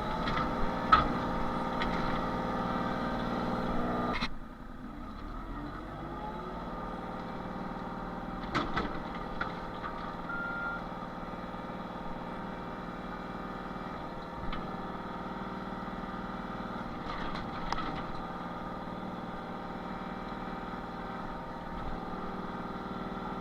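Excavator's diesel engine running under load, working harder for the first four seconds and then settling to a lower, steady note as it digs out a tree stump. Occasional short knocks from the bucket working the dirt and stump, and one brief beep about ten seconds in.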